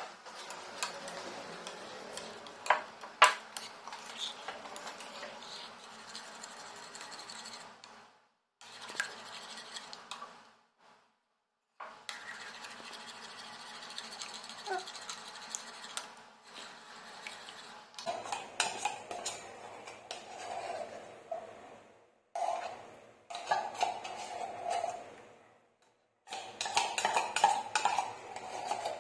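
Metal spoon stirring and scraping a thick milky mixture in a ceramic bowl, with clinks against the bowl, in several short takes broken by brief silences. Near the end comes louder scraping as the last of the milk is spooned out of a tin can.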